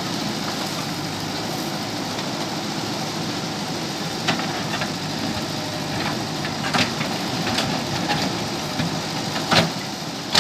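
JCB backhoe loader's diesel engine running steadily, with a few sharp knocks in the second half, the loudest near the end.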